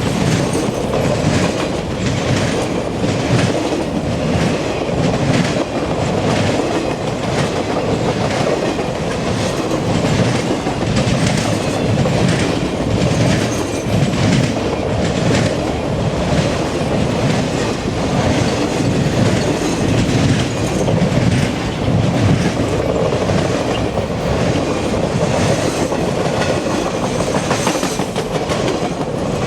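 A freight train's cars rolling steadily past, with repeated clickety-clack of steel wheels over the track joints and a constant rumble.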